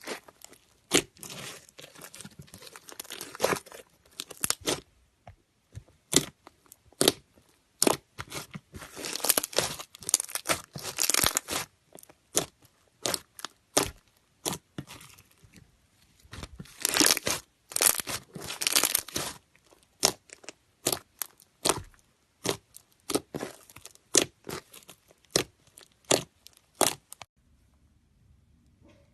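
Slime being pressed and stretched by hand, giving sharp sticky pops and crackles with several denser runs of crackling. It stops a couple of seconds before the end.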